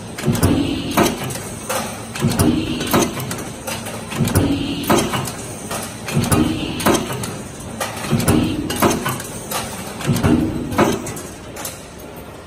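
Heading machine running through its cycle about once every two seconds, each stroke of the ram giving a heavy clunk with sharp metallic clicks as it forms a 300 mm long part.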